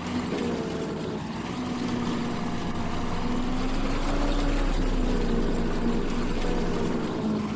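Combine harvester running steadily under load in a wheat crop, its engine note drifting slightly up and down over a low rumble.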